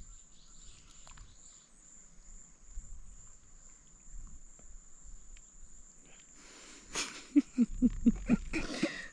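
Insects buzzing in a steady high tone over near quiet. About seven seconds in, a person bursts out laughing in a quick run of short loud pulses.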